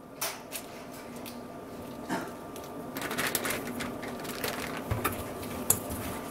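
Raw prawns being peeled by hand over a stainless steel bowl, with small crackles and clicks of shell. Then salt and potato starch are poured over them and the prawns are rubbed in the bowl, and the rustling and clicking grow denser.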